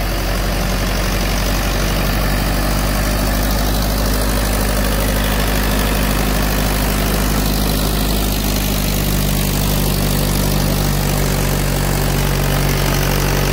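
Mahindra 575 DI tractor's four-cylinder diesel engine running steadily at full throttle under load, driving a 7-foot Shaktiman rotavator in second-low gear without bogging down.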